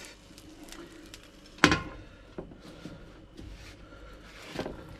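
Light kitchen handling sounds as an omelette is lifted out of an electric omelette maker: soft scrapes and small clicks, with one sharp knock about one and a half seconds in.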